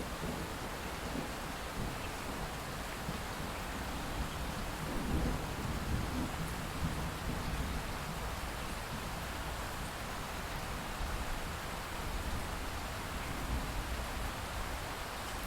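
Light steady rain with drips after a thunderstorm. A distant rumble of thunder swells about a third of the way in and fades.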